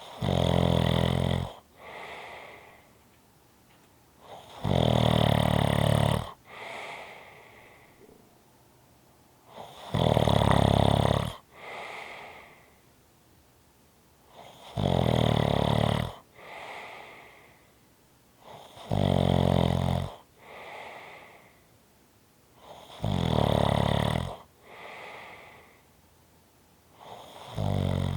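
A person snoring steadily and rhythmically: a loud snore comes about every four to five seconds, seven in all, each followed by a quieter, shorter breath.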